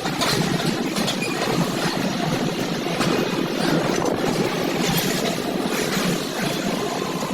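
A steady mechanical rumble and rattle, with irregular clattering over it, of the kind construction machinery makes.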